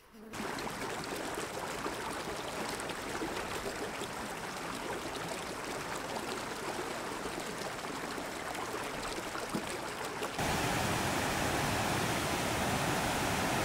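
Mountain creek running over rocks, a steady rush of water. About ten seconds in it jumps suddenly louder and fuller, with a small cascade close by.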